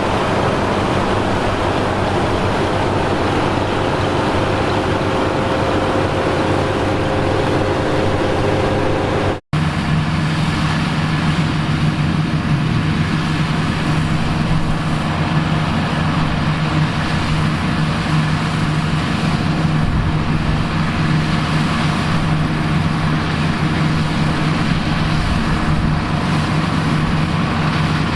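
Engines of vintage farm machinery running steadily at working speed. About nine seconds in the sound cuts out for an instant and changes to a different engine with a steadier, lower hum.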